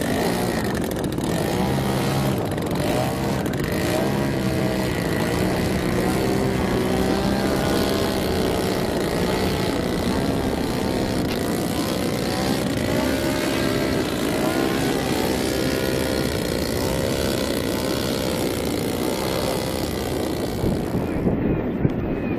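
Propeller aircraft engine running under a steady rushing noise, its pitch slowly rising and falling.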